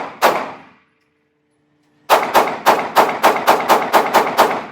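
Handgun shots: two shots a moment apart, then after a short pause a fast string of about a dozen shots at roughly five a second, each a sharp crack with a short echo.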